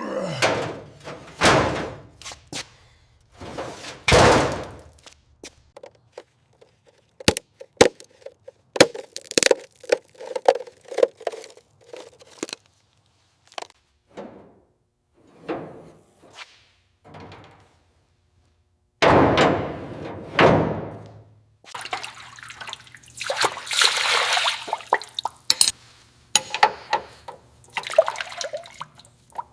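A run of separate knocks, clunks and scraping sounds with short gaps between them, turning into a denser spell of scraping and rattling over the last several seconds.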